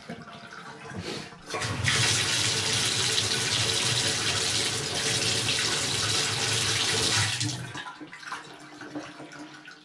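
Water running from a Delta single-handle tub faucet into the bathtub. The flow turns loud about a second and a half in and stays steady. It is shut off with about two seconds left.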